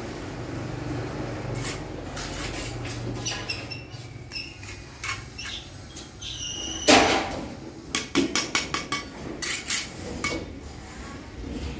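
Bricklaying: clay bricks knocking and clinking as they are handled and set, and a steel trowel tapping them down. A loud knock comes about seven seconds in, then a quick run of sharp taps, some with a brief metallic ring.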